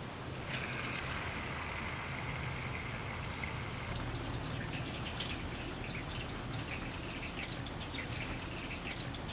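Gasoline pouring in a steady stream into a portable generator's fuel tank, starting about half a second in.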